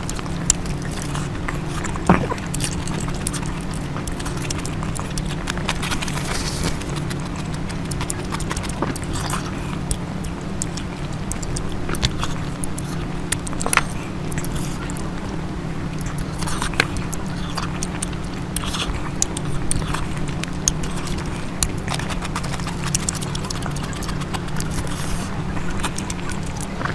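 A person eating close to the microphone: wet chewing with scattered smacking clicks, over a steady low hum.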